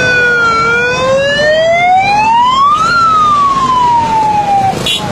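Emergency vehicle siren wailing: its pitch dips, rises steeply for about two seconds, then falls away and cuts off near the end, over a steady low background rumble.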